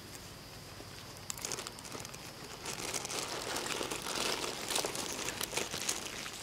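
Crinkling, crackling rustle with many small clicks, starting about a second in and growing louder.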